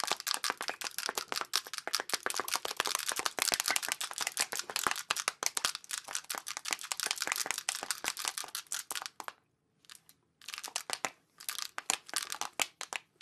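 Close-miked crinkling, tapping and clicking of plastic cosmetic cases and packaging being handled. It is a dense, rapid crackle that stops for about a second near the end, then starts again.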